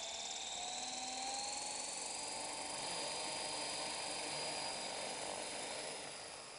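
Radio-controlled model helicopter spinning up on the ground: a motor and rotor whine that rises in pitch over the first two seconds or so, then holds steady, dropping in level near the end.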